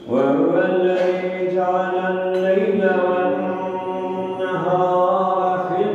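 A man's voice chanting Qur'an recitation in the melodic style, starting abruptly and holding long, drawn-out notes that shift in pitch a couple of times.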